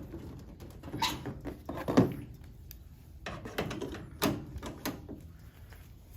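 A series of irregular knocks and rustles from parts and hardware being handled, the loudest knock about two seconds in and a few more around three to five seconds.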